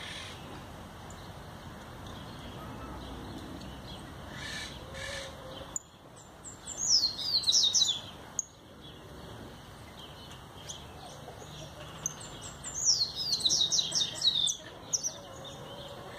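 Caged jilguero finch singing: two bursts of rapid, high twittering notes, each about two seconds long, the first about six seconds in and the second about twelve and a half seconds in.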